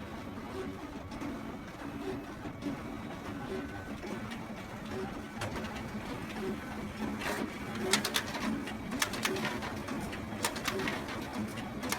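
Photocopier running: a steady hum with a regular low pulse under it and scattered sharp clicks, which come more often in the second half.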